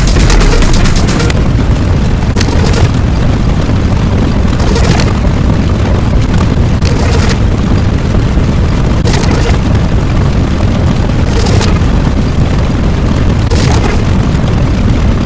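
Explosion sound effect: a loud, continuous low rumble with sharper blasts breaking through about every two seconds.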